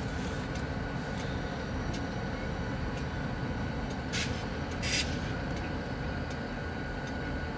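Diesel locomotives running at low power, a steady low rumble, with two short hissing bursts about four and five seconds in.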